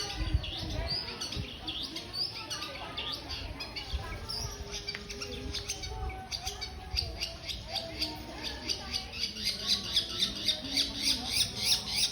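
Long-tailed shrike (cendet) calling: a string of short, high chirps that turns in the second half into a fast, loud, even series of about three to four calls a second.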